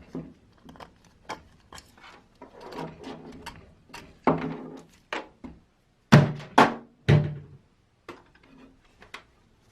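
A run of irregular knocks and clunks of parts being handled and set down, with a brief ring after some strikes; the three loudest come close together about six to seven seconds in.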